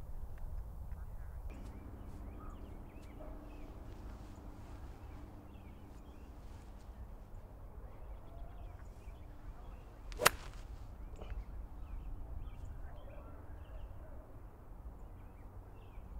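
A single sharp crack of a golf club striking a ball, about ten seconds in, the loudest thing heard. Under it runs a low steady rumble with faint scattered bird chirps.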